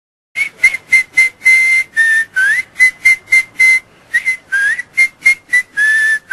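A man whistling through his lips: a string of about twenty short, clear notes on nearly one pitch, some held a little longer and a few sliding up into the note.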